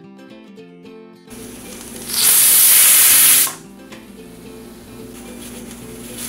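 Pressure cooker whistle: steam bursts out past the weight valve as a loud, high hiss lasting about a second and a half, starting about two seconds in, with softer sputtering of steam before and after. It signals that the cooker is up to pressure, and a second whistle starts right at the end. Light plucked-string background music plays underneath.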